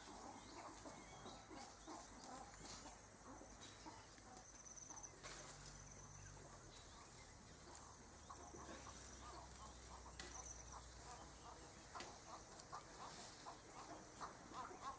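Near silence: faint outdoor ambience with a few short, high bird chirps, a faint low hum through the middle, and a run of soft taps and rustles in the last few seconds.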